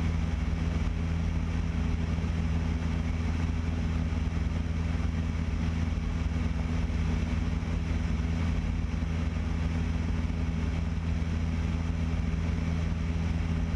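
Piper Cherokee 180's four-cylinder Lycoming engine and propeller running steadily in level flight: a low, even drone that does not change in pitch.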